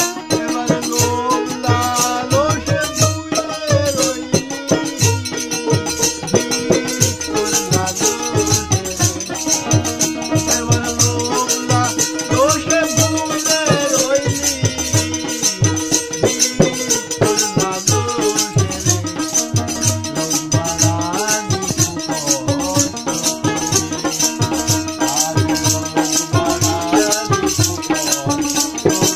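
Bengali baul folk music played live: a fast, even shaken-rattle rhythm over a steady drone and a wavering melody line.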